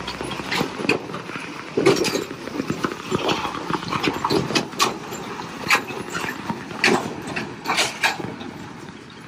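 Heavy articulated tipper truck rolling slowly over a muddy, potholed road: a low rumble from the truck with irregular knocks and clanks as its many trailer wheels drop through the ruts.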